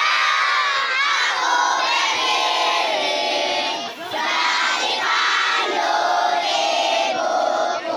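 A large group of children singing loudly together in unison, many voices at once, with a short break about four seconds in.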